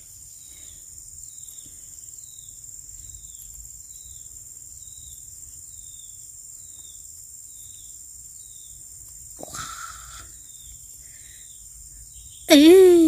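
Steady high-pitched insect drone with a short falling chirp repeating a bit more than once a second. Near the end comes a brief, loud, pitched call that bends down and up, the loudest sound here.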